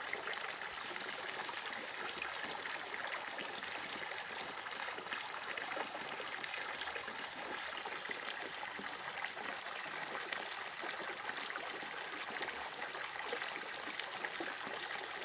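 Small, shallow mountain stream running steadily, a continuous even rush and trickle of water.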